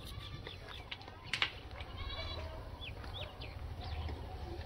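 A short, pulsing animal call about two seconds in, followed by a few brief high chirps, over a steady low hum.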